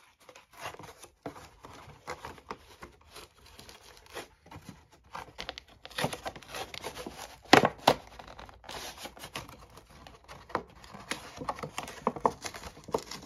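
Clear plastic doll packaging crinkling and cardboard tearing as a Barbie box is worked open by hand, in irregular crackles and scrapes with the loudest about seven and a half seconds in.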